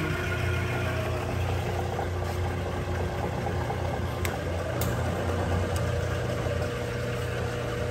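Clausing No. 15 drill press heads running, a steady hum from their 3/4 horsepower single-phase motors and spindles. About halfway through, one running tone drops out and another comes in, with a few sharp clicks as start/stop switches are flipped.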